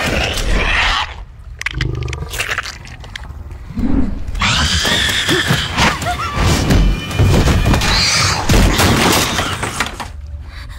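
Dramatic film soundtrack: music mixed with crashing, booming impact effects, quieter for a few seconds after the first second before building again.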